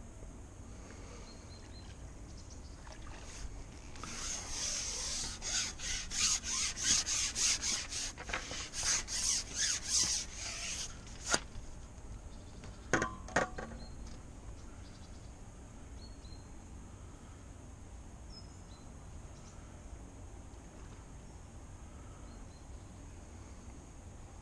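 Fishing pole being slid back hand over hand, a run of rasping rubs about three a second for some seven seconds, then a few sharp clicks.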